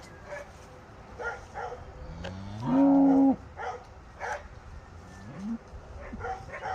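A cow moos once, loudly, for about a second and a half, the call rising in pitch and then holding before it cuts off. A short, fainter rising call follows about five seconds in. It is typical of cows calling to companions they have been separated from.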